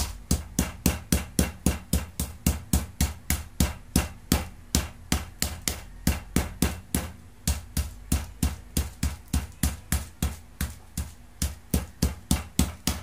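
Steady pounding of a stainless steel rolling pin on chicken breast between plastic sheets on a table, about three to four blows a second, flattening the meat thin.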